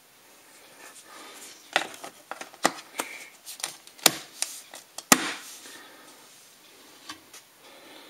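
The memory-compartment door on the back of a 27-inch Retina 5K iMac (mid 2015) being fitted back into its opening and pressed home by hand. A run of clicks and taps starts about two seconds in, and the sharpest comes at about five seconds.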